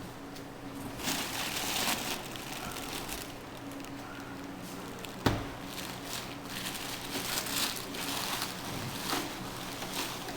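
Packaging being handled during unboxing: rustling and crinkling in bouts, with one sharp knock about five seconds in.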